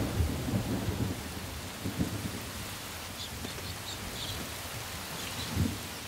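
Heavy rain pouring steadily through a thunderstorm, with low rumbling thunder that is loudest in the first second. A few faint high chirps come in the middle.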